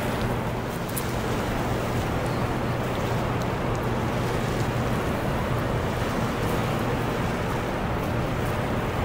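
Steady rush of fast, churning river water below Conowingo Dam's discharge, with a low steady hum underneath.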